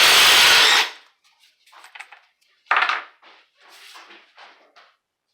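Cordless impact wrench with a 15/16 socket hammering on a floor jack's nut in one loud burst of under a second, followed by scattered lighter knocks and rattles.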